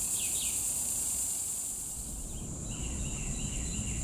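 Steady high-pitched drone of insects, with a couple of short bird chirps right at the start and a quick run of repeated bird notes starting about two-thirds of the way in.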